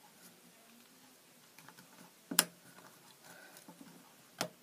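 Light clicks and taps of pencils and a plastic pen lid being handled and pushed together on a wooden desk, with two sharper clicks, one about halfway through and one near the end.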